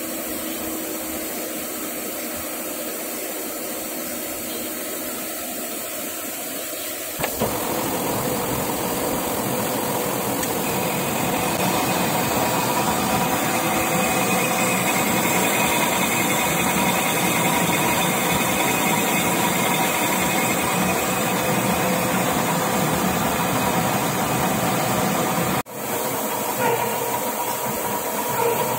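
Metal lathe running, its chuck spinning as it turns round bar stock under flowing cutting coolant: a steady machine hum with a faint high whine. It gets louder about seven seconds in and breaks off for an instant near the end.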